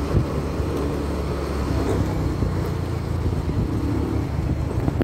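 Engine of a moving vehicle running steadily while travelling along a street, a constant low rumble with road and wind noise over it.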